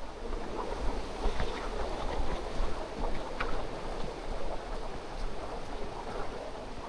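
Rushing water of a mountain stream, a steady noisy wash, with wind buffeting the microphone.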